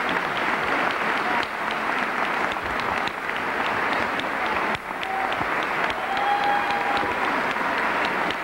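A large crowd applauding steadily, a dense patter of many hands clapping.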